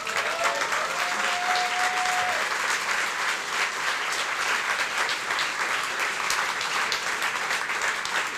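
Theatre audience applauding, a dense steady clapping that starts abruptly and carries on without a break.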